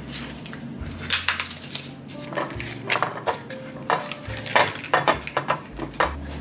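A stick of butter in its paper wrapper rubbed and knocked around a glass baking dish to grease it: a run of short, irregular scrapes and taps against the glass.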